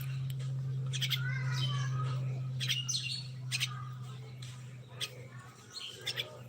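Common myna calling: a scattered series of short, sharp clicks and chirps. A steady low hum runs underneath and fades out near the end.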